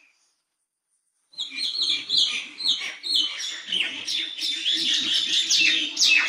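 Birds chirping in a busy chorus of quick, high, falling chirps that overlap one another, starting abruptly about a second in after a silent gap.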